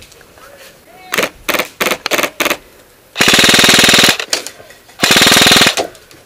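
Airsoft rifle, a PolarStar-powered KWA CQR, firing: a string of short bursts about a second in, then two long fully automatic bursts of under a second each, at a very rapid rate of fire.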